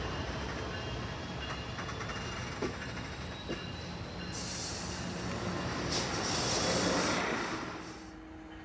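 Train passing on the rails: a steady rumble with a few clicks of wheels over the rail, then a high hiss from the wheels for about three seconds after the midpoint, dying away near the end.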